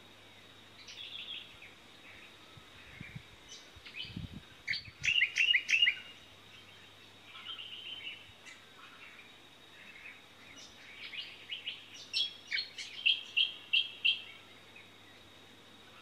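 Small birds calling in bursts of quick high chirps. The loudest parts are a rapid run of notes about five seconds in and a string of evenly spaced chirps near the end.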